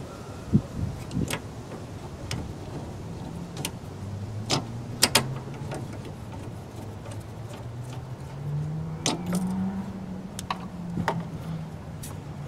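Scattered sharp metallic clicks and taps from a brass AC valve core removal tool being worked by hand on a car's air-conditioning service port, its rod turned and pushed while trying to catch the Schrader valve core, which it fails to grab. A faint low hum wavers underneath.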